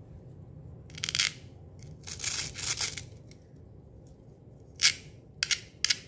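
Plastic toy play-food grape bunch being handled and pulled apart into its two halves: two rasping scrapes in the first three seconds, then three short sharp plastic clicks near the end.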